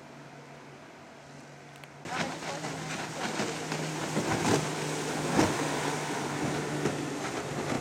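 A fainter outboard hum, then suddenly louder from about two seconds in: a Yamaha outboard motor on a wooden taxi boat running at speed close by, with water splashing and hissing off the hull.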